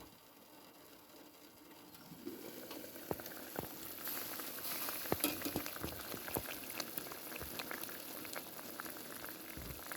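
Liquid coming to the boil for a lemon cold-and-cough remedy, with many small pops. The bubbling grows louder from about two seconds in.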